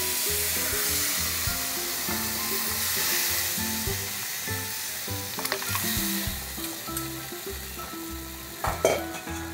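Hot pineapple water sizzling and bubbling as it hits ghee-roasted semolina in a nonstick pan, loudest at first and slowly fading, while a spatula stirs it. A few sharp knocks of the spatula against the pan come through, the loudest near the end.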